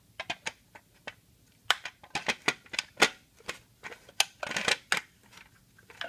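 Irregular clicks and light knocks of hands working a small-block Chevy's distributor and cap, the distributor loose because it is not yet clamped down. The clicks are sparse at first, then come thick and fast from a couple of seconds in.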